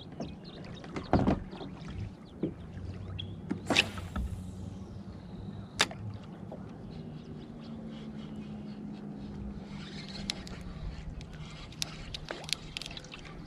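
A cast with a baitcasting rod and reel: a sharp swish, then the spool's high whir falling in pitch as line pays out, and a click about two seconds later. Around it are scattered soft clicks of the reel and rod being handled in a kayak.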